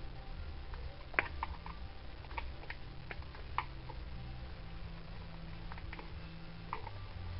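Scattered sharp plastic clicks and taps, the loudest about a second in, as a screwdriver levers the plastic plug cover's lip under the casing of a Kirby upright vacuum cleaner, over a low hum.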